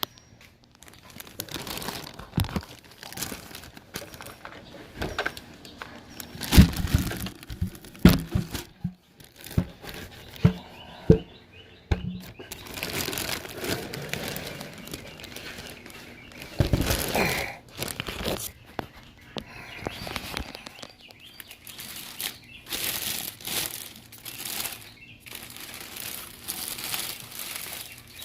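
Packaging being handled and opened: cardboard and plastic crinkling, rustling and tearing, with several sharp thumps and knocks in between as the box and its contents are moved.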